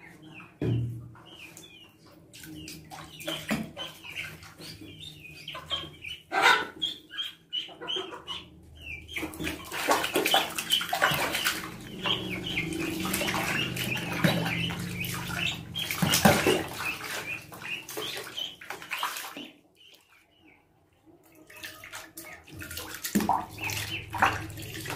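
Water splashing and sloshing in a plastic basin as a duckling is washed by hand, with the duckling's repeated high peeping. The splashing is loudest in the middle stretch and drops away briefly a little after halfway.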